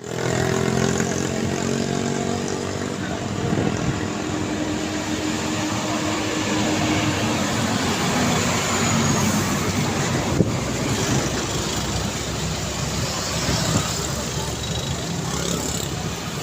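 Busy street traffic: cars and trucks passing with a steady mix of engine and tyre noise, heavy diesel engines prominent in the first few seconds and again near the end. A sharp click about ten seconds in.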